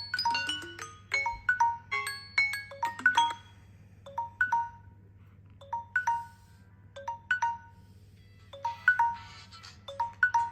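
Smartphone ringtone: a melody of short, quickly fading pitched notes, busy for the first few seconds, then short phrases repeating with pauses between, busier again near the end.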